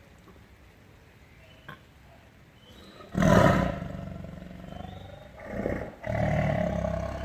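Tiger roaring: quiet for about three seconds, then one loud short roar, a second shorter one, and a longer drawn-out roar near the end.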